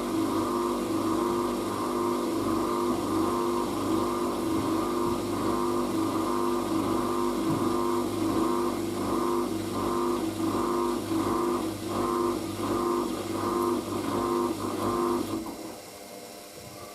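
Hoover DYN9144D3X washing machine spinning a towel load at high speed: a steady motor whine with a low tone and a higher tone, pulsing evenly. About fifteen seconds in the motor drive cuts out suddenly, leaving only a faint hum.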